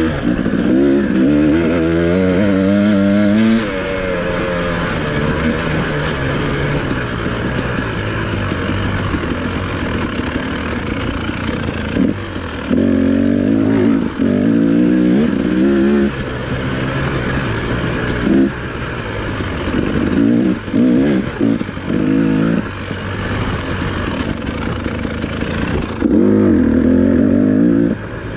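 2018 KTM 300XC two-stroke single running through its stock pipe and FMF Turbine Core 2.1 silencer under hard acceleration: the revs climb steeply for the first three or four seconds off the start line. After that the engine rises and falls in pitch again and again, with short throttle cuts, as the bike is raced along the trail.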